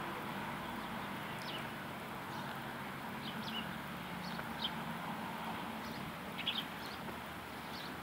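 Sparrows giving scattered short, high chirps, a few at a time, over a steady low hum.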